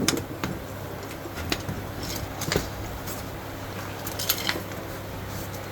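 Scattered light metallic clicks and clinks of hand tools working on a car's front steering and suspension parts, over a steady low hum.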